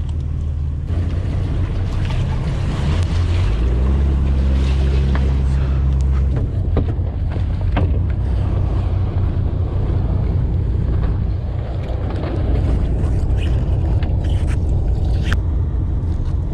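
A fishing boat's engine running with a steady low hum, over wind and water noise; a few seconds in, the hum changes pitch and grows louder for about three seconds before settling back. Scattered short knocks come from handling on deck.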